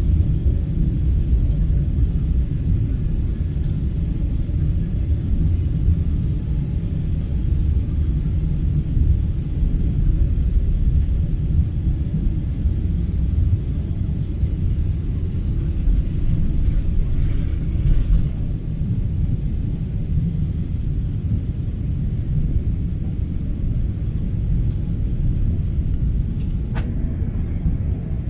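Boeing 777-300's twin jet engines at takeoff thrust: a loud, steady low rumble. A single sharp click comes near the end.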